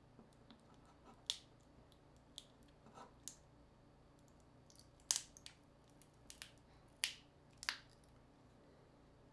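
Small sharp clicks and snaps from smartphone parts being handled and pried apart by hand, about ten of them at irregular spacing, the loudest a little past halfway.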